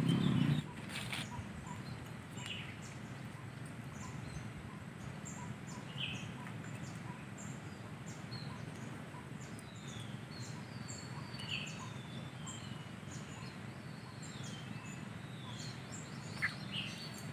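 Small birds calling with short high chirps and brief whistles scattered throughout, over a steady low background hum.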